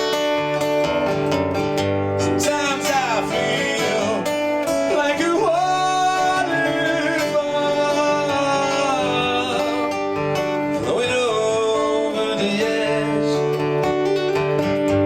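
Song with acoustic guitar and a singing voice drawn out in long, gliding notes without clear words.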